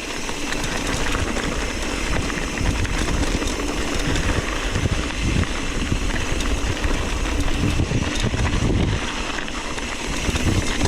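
Mountain bike rolling downhill on a rough, rocky dirt trail: tyres crunching and the bike rattling over stones, with wind rushing over the microphone.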